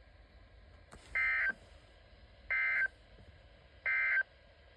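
Emergency Alert System end-of-message code on a NOAA Weather Radio broadcast. It is three short, identical bursts of buzzy data tones, evenly spaced, and it signals the end of the weekly test message.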